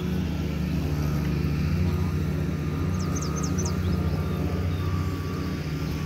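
Steady low engine drone from unseen motor traffic, with a few quick, high, falling bird chirps about halfway through.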